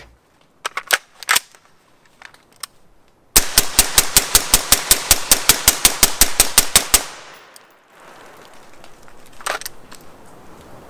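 A 5.56 AR pistol with an 8-inch barrel and a Wolfpack Armory Disruptor 556K suppressor fires a rapid string of about twenty shots, five to six a second, lasting about three and a half seconds, and the echo dies away after it. A few sharp clicks come before the string. The gun is loud despite the suppressor, because a very short can is paired with a barrel below the suppressor's minimum rated length.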